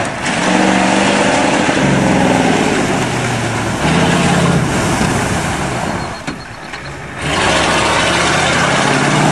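1991 Ford F250's 7.3-litre IDI diesel V8 revving hard under load, the revs rising and falling. It eases off briefly about six seconds in, then pulls hard again.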